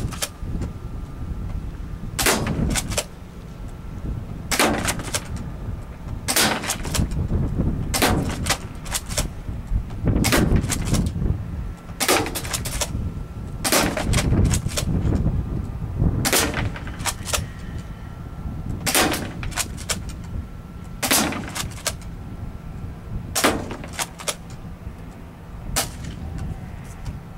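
DE M56A multishot airsoft shotgun fired about a dozen times, roughly once every two seconds. Each shot comes as a sharp double clack of the spring-powered pump-action firing and being racked. Wind noise rumbles on the microphone underneath.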